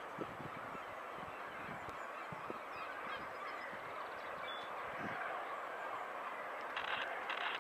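Birds calling over a steady background hiss, with two short, louder noisy bursts near the end.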